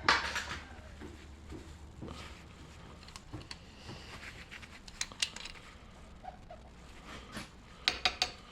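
Parts of a paintball marker being handled during disassembly: small scattered clicks and scrapes, with a short burst of noise at the start and a quick run of sharp clicks near the end.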